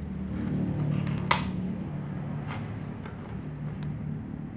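An electrical cable and its plastic power strip being handled on a tile floor. There are a few light clicks, a sharp one a little over a second in, over a steady low hum.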